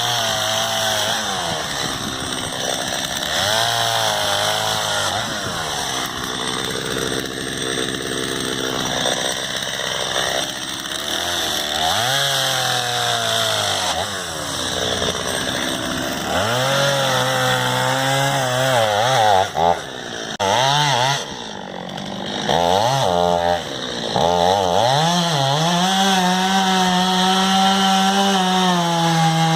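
Gasoline chainsaw running at high revs and cutting into a cherry trunk, making the felling cut behind the notch; the engine note rises and falls as the chain loads in the wood, with brief throttle drops about two-thirds through.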